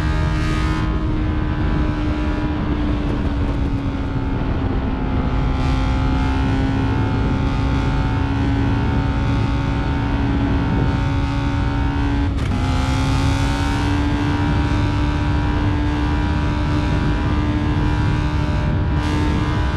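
TVS Apache RR 310's single-cylinder engine running at steady high revs at speed, over a steady rush of wind noise. About twelve seconds in, the revs drop sharply at an upshift and climb again.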